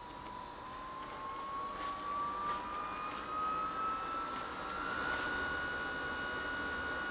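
Small electric fan motor whining as it spins up, its pitch rising over about five seconds and then holding steady, with a few sharp crackling clicks over it. The motor is most likely the BioLite FirePit's built-in fan being turned up to drive air into the fire.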